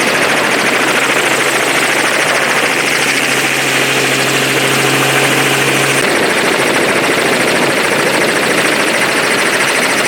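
Helicopter running steadily in flight, its engine and rotor noise loud and constant. A low steady hum joins partway through and cuts off abruptly about six seconds in.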